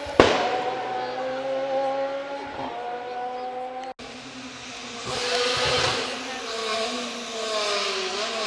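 Rally car engine at full throttle, its note climbing through the revs with a gear change partway, and a sharp bang just after the start. About four seconds in the sound cuts to another stretch where a car goes by with a hiss of tyres and an engine note that falls away.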